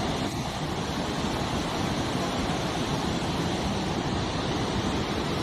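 Floodwater of a swollen river rushing past, a steady even noise with no let-up.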